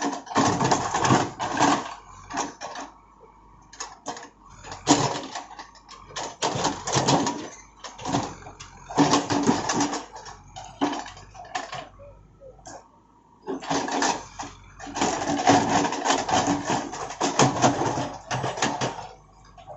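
Backhoe loader at work: irregular bursts of clattering and scraping, separated by quieter gaps, over a faint steady low hum.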